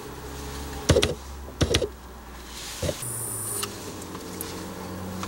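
A handheld lighter being flicked: a few sharp clicks, then a short hiss about three seconds in. A low steady hum comes in underneath at the same time.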